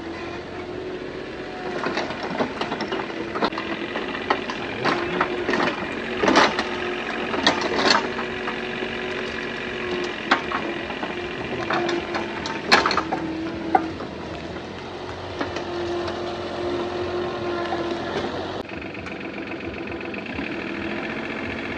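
Excavator engine running steadily, with irregular metallic knocks and clanks.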